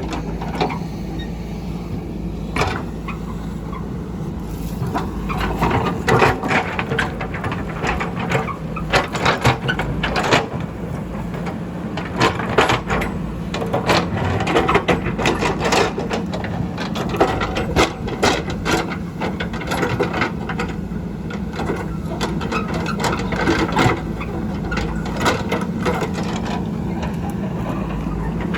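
Diesel engine of a JCB backhoe running steadily, with frequent knocks, cracks and clatters from the bucket digging through rock and earth.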